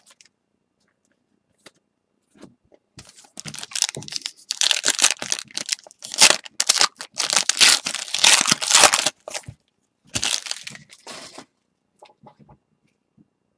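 A retail pack of Prizm basketball cards being torn open by hand, its wrapper tearing and crinkling in a dense run of crackles. The crackling starts about three seconds in and stops a couple of seconds before the end.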